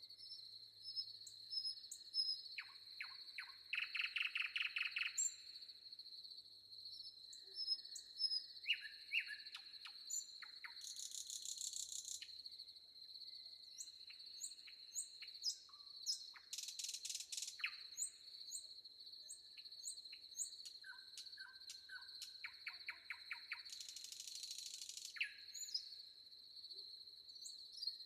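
Several forest birds singing and calling: repeated short high chirps, with fast rattling trills a few times. Throughout, a steady high-pitched insect drone continues, and three dense buzzy bursts of a second or so stand out near the start, the middle and near the end.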